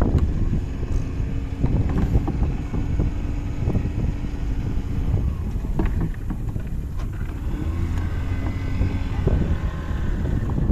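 Small boat's outboard motor running steadily under way, with wind on the microphone and a few short knocks.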